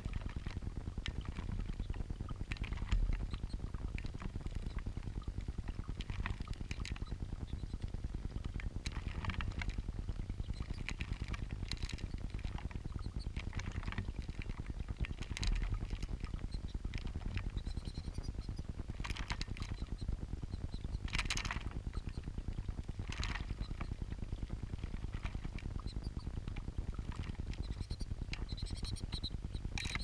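Small stone garden fountain bubbling water up over its rock basin, heard close up as a steady low gurgling rumble. Lesser goldfinches splash in the shallow water, making short scattered splashes and flutters throughout.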